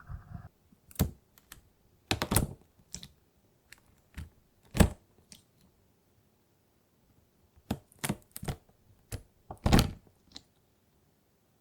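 Sharp, separate clicks and cracks in small clusters with quiet gaps between them, from the keys of a handmade 'lava' keyboard being pressed for ASMR.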